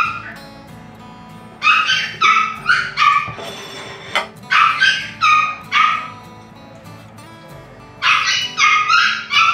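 Dog barking in quick, high-pitched yips, three bursts of about five each, begging for the food being served. Background music runs underneath.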